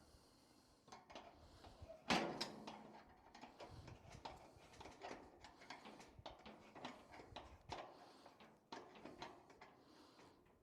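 Faint, scattered clicks and light knocks of parts being handled and held in place, with one louder knock about two seconds in.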